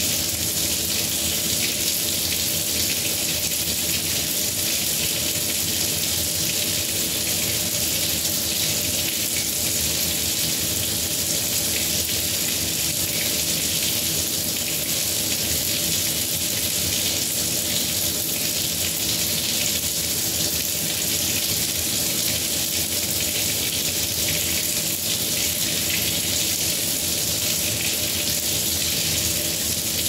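Kitchen faucet running a steady stream of water into the sink basin, an even, unbroken splashing.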